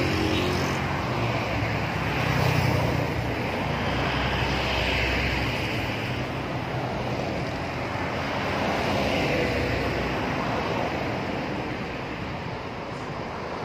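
Passing road traffic: engine and tyre noise that swells and fades several times as vehicles go by, with a low engine hum that dies away about ten seconds in.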